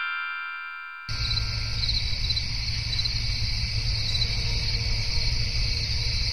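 A ringing chime fades out, then about a second in a steady chorus of crickets chirping starts abruptly, with a low rumble underneath.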